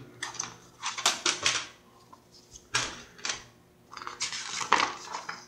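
A plastic DVD keep case, its discs and paper insert being handled: a string of sharp plastic clicks and taps with short paper rustles.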